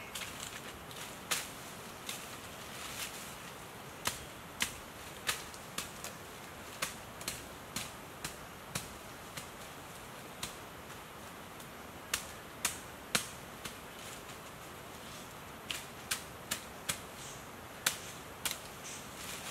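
A series of sharp, light clicks and taps at an uneven pace, one to three a second, with a few short pauses, over a faint steady background hiss.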